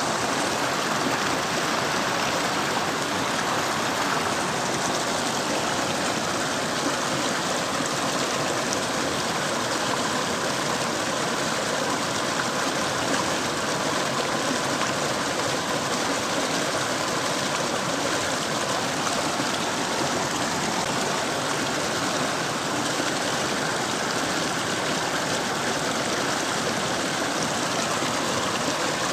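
Mountain river water rushing over rocks in a steady, unbroken flow.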